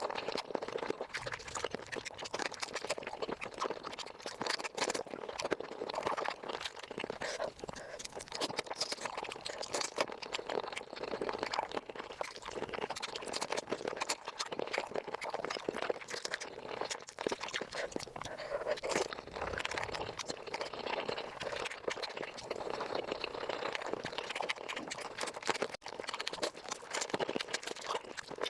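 Close-miked eating of chicken feet played at five times speed: a dense, unbroken run of crunching, chewing and mouth clicks.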